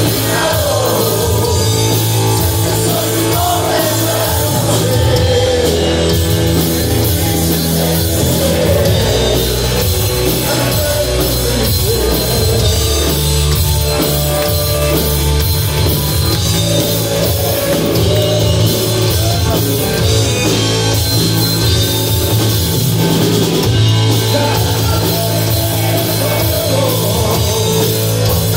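Heavy rock band playing live: distorted electric guitar, bass guitar and a drum kit, with a singer's voice over them, heard loud and steady from within the audience.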